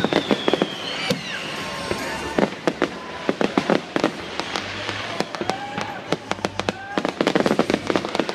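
Aerial fireworks going off: a fast, irregular run of bangs and crackles from bursting shells, with a few whistles sliding in pitch, and a dense spell of crackling about seven seconds in.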